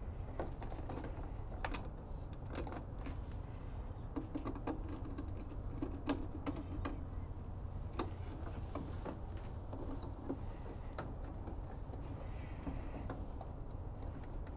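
Hand handling of electrical wires being routed and pushed into the terminal block of a solar monitoring enclosure: irregular small clicks, ticks and rustles over a steady low hum.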